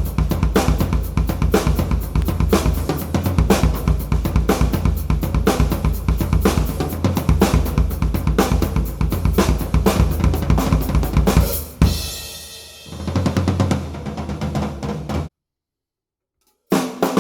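Sakae Trilogy drum kit with a Ludwig bronze snare and Paiste cymbals played in a fast, busy pattern of bass drum, snare and cymbals. About twelve seconds in the playing stops and the kit rings out, then there is a second or so of dead silence before the playing starts again near the end.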